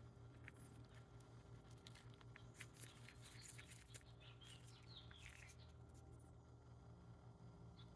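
Near silence: a faint steady hum with scattered faint clicks, and a few faint short chirps in the middle.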